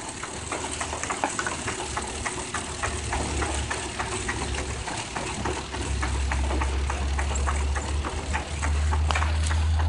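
Veneer splicer running: a steady low machine hum with rapid, evenly spaced ticking, several clicks a second. The hum grows louder about six seconds in and again near the end.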